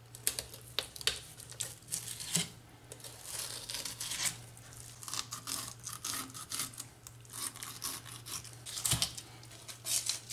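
Fillet knife cutting along a scaled redfish on a wooden cutting board: irregular rasping and scraping strokes as the blade works through scales, skin and flesh, with a few light knocks.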